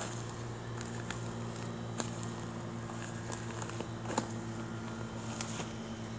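Footsteps crackling a few times on dry wood-chip mulch, over a steady low mechanical hum.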